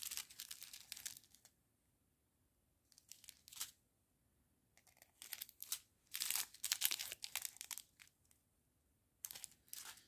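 Small plastic bags of round diamond painting drills crinkling as they are handled, in several bursts with quiet gaps between.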